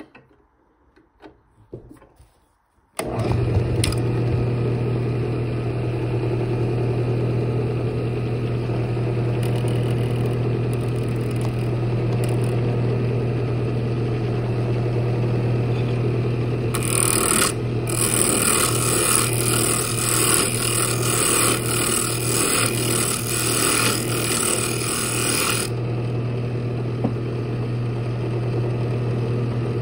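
A few light knocks, then about three seconds in a wood lathe comes in running with a steady low hum. From just past the middle, for about nine seconds, a gouge scrapes and hisses as it cuts the spinning wooden lid.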